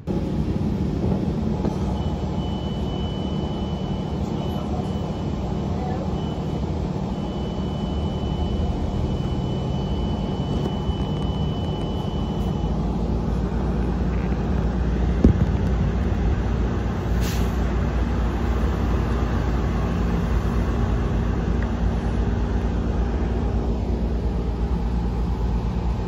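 City bus running, heard from inside the cabin: a steady engine and road rumble. A thin high beep sounds from about two seconds in for about ten seconds, with a few short breaks.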